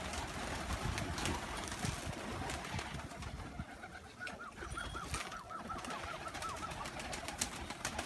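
A flock of pigeons cooing and flapping their wings, with scattered soft wing claps. Near the middle comes a quick run of about a dozen short high chirps, about four a second.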